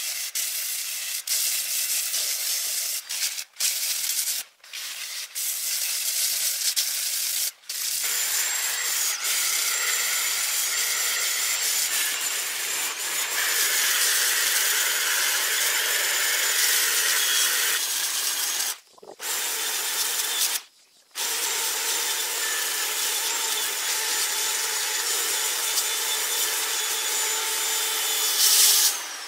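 Corded electric drill fitted with a sanding disc, running steadily and rasping against the boat's hull, with a high motor whine over the grinding hiss. The sound cuts out abruptly for a moment several times.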